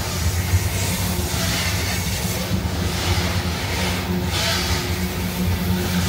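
A CSX freight train's hopper cars rolling steadily past, a continuous noise of steel wheels on rail with a steady low hum underneath.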